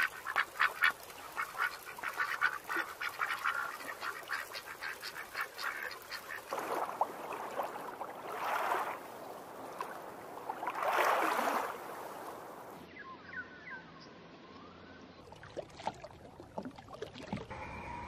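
Ducks quacking and calling: a rapid chatter of short calls at first, then two longer, louder calls. After a change in the sound near the end, faint, thin whistling bird calls.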